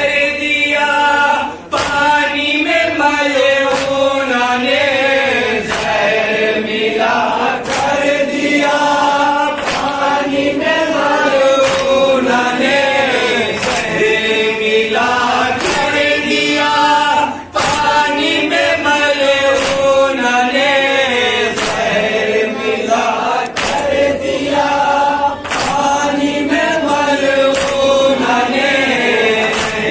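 Several men chanting a noha, a Shia lament, together through microphones, with sharp chest-beating (matam) strikes about every two seconds keeping the beat.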